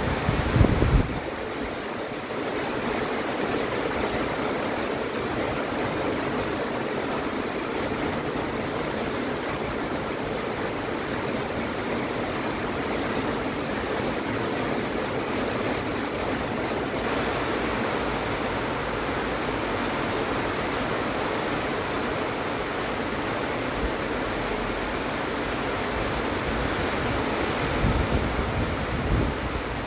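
Heavy rain pouring steadily, a dense even hiss, with water streaming off the eave overhead. Brief low rumbles come in the first second and again near the end.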